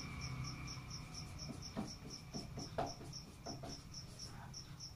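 Whiteboard marker writing in short squeaky strokes, from about a second and a half in until near the end. Underneath, a faint high-pitched chirp repeats steadily about four times a second.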